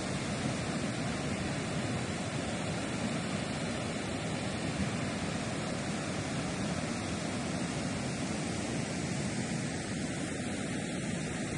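Steady, even rushing noise of a mudflow torrent pouring through the gorge.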